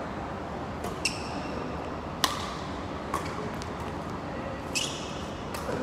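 Badminton rackets hitting the shuttlecock in a rally: a series of sharp smacks about once a second, the loudest a little after two seconds in, several with a brief high ring.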